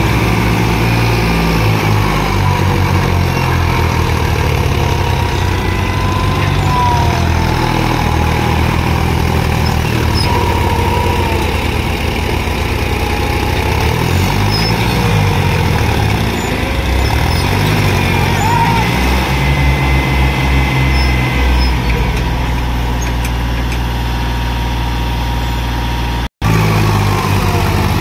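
John Deere tractor diesel engines running as one tractor pulls the other out of the soft field, the engine pitch rising and falling as they are revved under load. The sound breaks off for a moment near the end.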